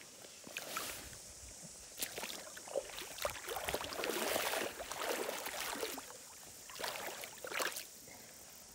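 Shallow lake water splashing and sloshing as a brown trout is held and released by hand, in irregular splashes that are busiest about four to five seconds in and die away near the end.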